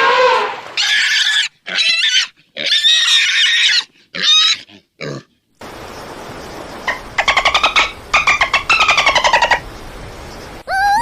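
A pig squealing in a series of short, high-pitched cries during the first half. After a cut, a different animal call comes in several runs of rapid stuttering pulses.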